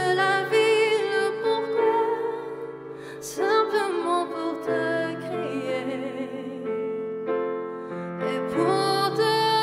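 A woman singing in French with vibrato, accompanied by held chords on an electronic keyboard piano. Her voice grows softer for a few seconds in the middle while the chords carry on, then comes back strongly near the end.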